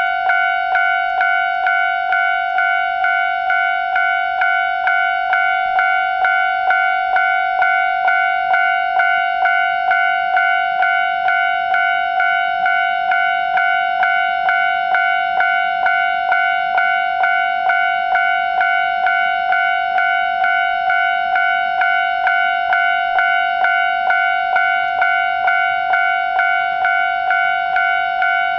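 Japanese railway level-crossing warning bell ringing, an electronic ding repeated evenly about one and a half times a second; the crossing is active, warning of an approaching train.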